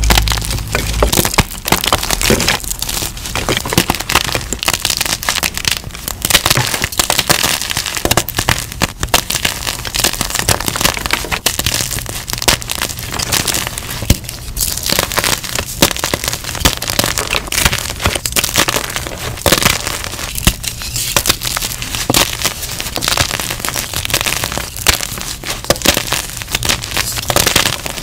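Blocks of purple-dyed gym chalk (magnesium carbonate) crushed by hand, with continuous crunching and crackling as they break into chunks and powder.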